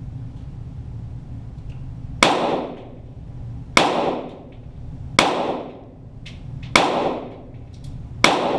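.22 LR Walther GSP target pistol fired five times at a slow, steady pace, about one and a half seconds apart, heard from beside the targets. Each shot is a sharp crack with an echoing tail.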